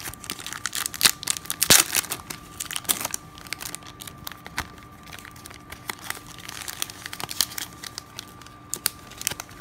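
Foil wrapper of a 1998 Bowman Chrome card pack crinkling as it is pulled open by hand, in irregular crackles that are busiest in the first few seconds and thin out after.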